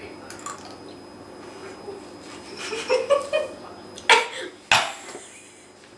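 A young woman coughing twice in quick succession, about four seconds in, after tasting dry chicken seasoning. A few short muffled vocal sounds come a little before the coughs.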